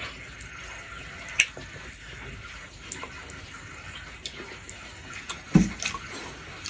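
A person eating during a mukbang: quiet mouth and chewing sounds with scattered sharp clicks, one loud click about a second in, and a brief cluster of knocks with a dull thump near the end.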